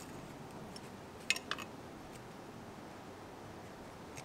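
Hand-stitching leather with tarred hemp thread and a needle: quiet handling over a steady hiss, with a quick run of three or four small clicks about a second and a half in and one faint click near the end.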